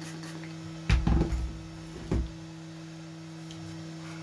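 Two dull knocks, one about a second in and another about two seconds in, as the threaded metal tonearm base parts of a Technics 1200/1210 turntable are handled on a towel-covered bench, over a steady low hum.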